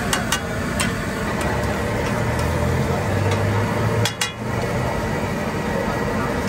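Sharp metal clinks of utensils on a tawa, a few near the start and a quick cluster about four seconds in, over a steady hiss of street-stall noise. A low engine hum runs underneath for a couple of seconds in the middle.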